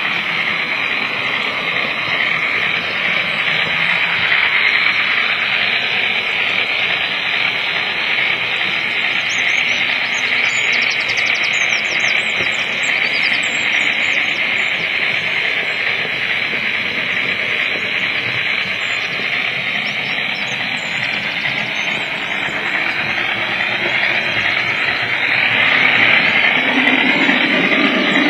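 OO gauge model train running along the layout track, heard from a camera carried on the train: a steady running noise of motor and wheels on rail, growing louder near the end as it enters a tunnel.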